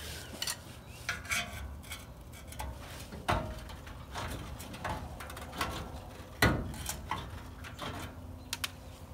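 A hand tool clinking and scraping against the rusty steel bumper bracket of an old VW bus: irregular metal-on-metal clinks and scrapes, with two sharper clanks about three and six and a half seconds in.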